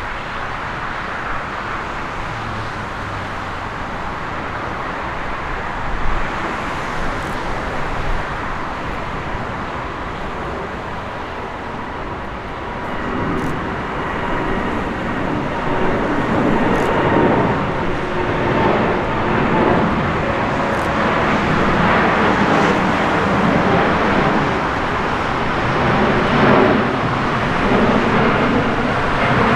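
Jet airliner engines running, a steady rush with a faint whine that grows louder about halfway through.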